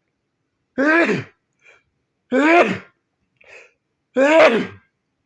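A man sneezing three times in a row, each sneeze a loud, short, voiced burst about a second and a half apart, with a quick intake of breath before the second and third.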